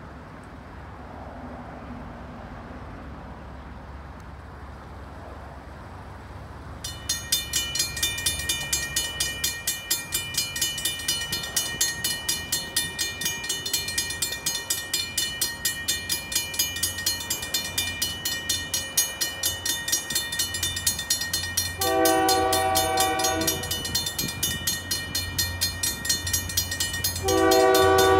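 Railroad crossing bell starts ringing about a quarter of the way in and keeps striking at an even rapid rate. Near the end a train horn sounds two long blasts, the second one the loudest.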